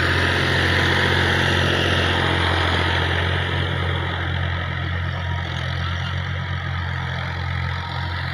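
Fiat 480 tractor's three-cylinder diesel engine running steadily while it pulls a cultivator through ploughed soil. The sound eases slightly as the tractor moves away.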